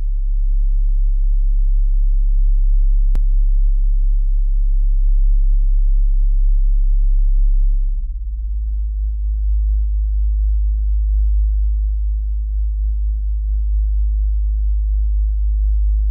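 Low electronic bass drone: a loud, steady, very deep hum that steps to a slightly higher, fuller pitch about halfway through, with a fainter higher tone joining it. A single faint click about three seconds in.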